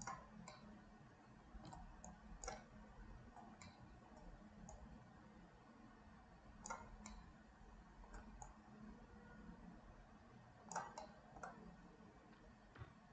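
Near silence with scattered faint clicks of a computer mouse, some in quick pairs or threes, over a faint steady low hum.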